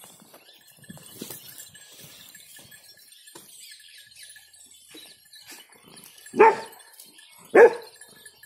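Rottweiler barking: two loud, short barks about a second apart near the end, after several seconds of faint rustling.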